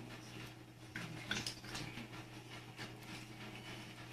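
Cats crunching dry kibble: an irregular run of small crisp clicks and ticks, over a steady low electrical hum.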